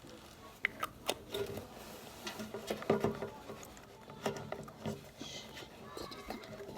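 Slime being mixed and handled by hand: irregular sticky clicks and squishes.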